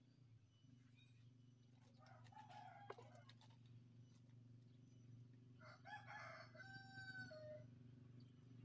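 A rooster crowing faintly twice: a shorter crow about two seconds in, then a longer one about six seconds in that drops in pitch at the end. A steady low hum runs underneath.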